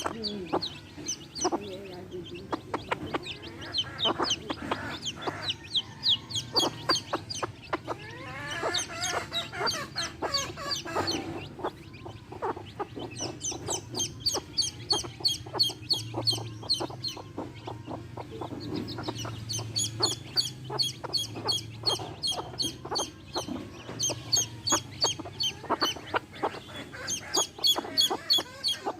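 Baby chicks peeping in quick runs of short, high chirps, with a hen clucking lower among them.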